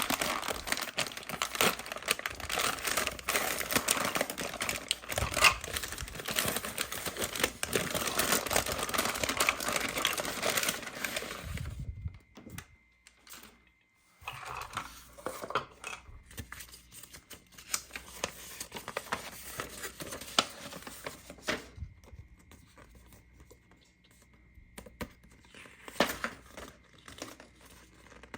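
Toy packaging being crinkled and torn open, a dense crackling that stops about twelve seconds in. Lighter scattered clicks and handling noises follow.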